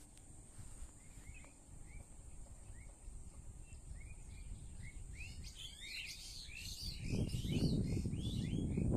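Small birds chirping in a tree: short rising chirps repeated about twice a second, thickening into a busy chorus of several birds after about five seconds. A steady high hiss sits underneath, and a loud low rumbling noise comes in about seven seconds in.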